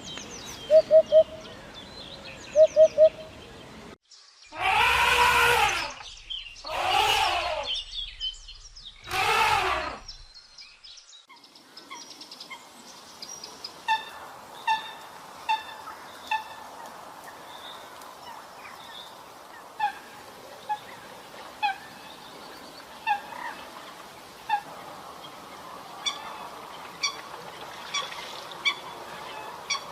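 Poultry calling: three loud, drawn-out calls in the first third, followed by a long scattered series of short, repeated chirps.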